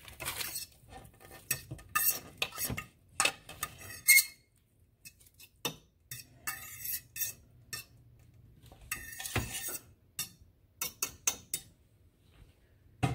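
Irregular clinks and scrapes of a ceramic plate and utensil against a stainless steel pot as shredded chicken is emptied off the plate into the broth.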